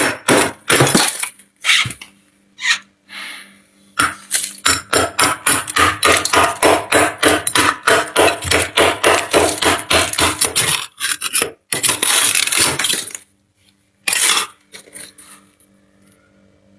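Metal spoon scraping thick frost off a freezer's inner wall in quick repeated strokes, about four a second, with a pause early on and one longer continuous scrape about three-quarters of the way through.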